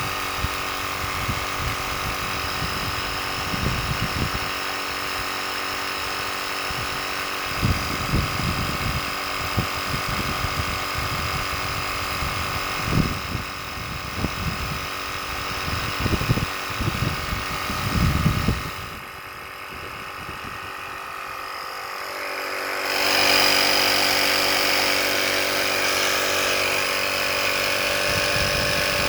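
Small electric air compressor of an EverStart portable power unit running with a steady buzzing hum. It drops off about 19 s in and comes back louder about 23 s in.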